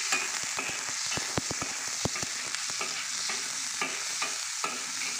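Minced garlic sizzling in hot oil in a wok while a metal spatula stirs it, scraping and clicking against the pan, with a quick run of clicks about a second in. The garlic is being sautéed until fragrant.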